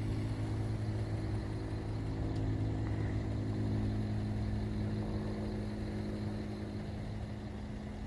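Steady low engine drone from a small plane overhead, a hum of several fixed pitches that slowly fades toward the end.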